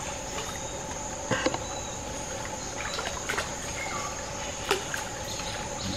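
Steady high-pitched drone of rainforest insects, with a few short splashes and knocks about one and a half, three and a half and five seconds in as a cast net is handled in shallow creek water.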